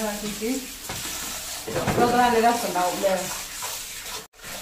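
Kitchen tap running into a stainless-steel sink while hands rub and rinse food in a bowl under the stream, with a voice talking over it at the start and again in the middle.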